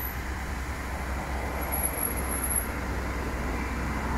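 MTS vacuum excavator truck's engine and hydraulics running steadily as the hopper tips up: a constant low drone with a rushing noise over it.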